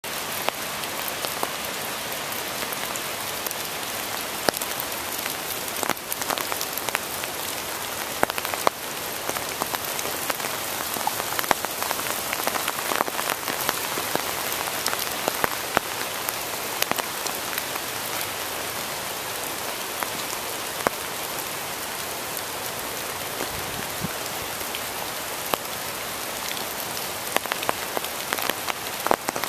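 Steady rain falling through woodland onto leaves: a constant hiss with many scattered sharp drip ticks of drops hitting foliage.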